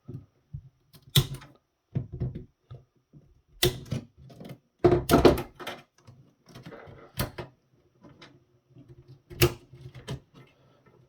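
Hands working inside an opened electronics unit: irregular sharp clicks and knocks of parts and wiring being handled, with softer rustling between them.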